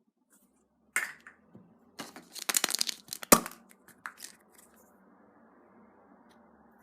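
Wrapper of a surprise egg crinkling and tearing as it is unwrapped by hand, in a string of short rustling bursts with one sharp snap a little over three seconds in.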